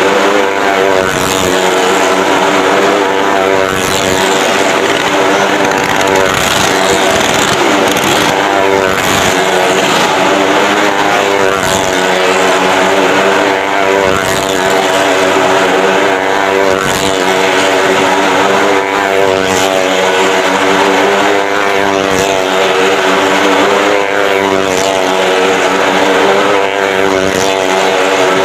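Motorcycle engine running at steady, sustained revs as it rides round the vertical wooden wall of a well of death, its pitch wavering slightly.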